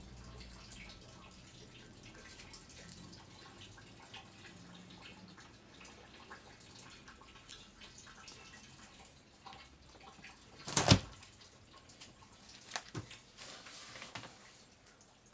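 Quiet room sound with scattered small clicks. About eleven seconds in comes one sharp knock, followed by a few lighter knocks and a short hiss.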